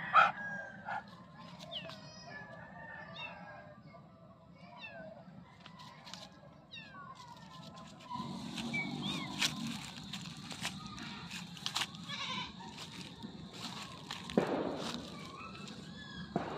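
Tiny kittens mewing over and over: many short, thin, high-pitched mews, with a louder call right at the start and another near the end.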